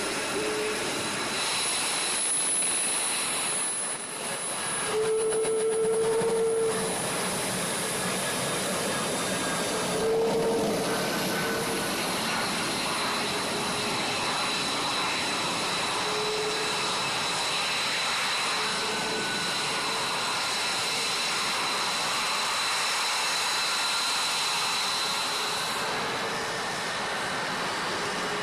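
F-22 Raptor's twin jet engines running at taxi power: a steady high turbine whine over a constant rushing noise.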